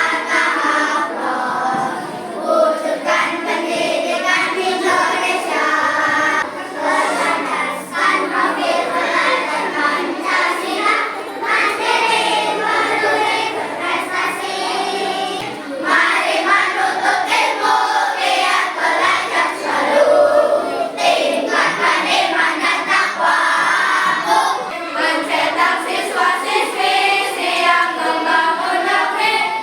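Primary-school children's choir singing a march song, without a break.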